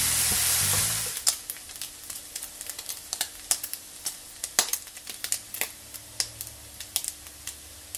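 Diced bacon rashers frying in a non-stick fry pan. A dense, even sizzle for about the first second, then the browning bacon crackles and spits in its rendered fat with irregular sharp pops, several a second.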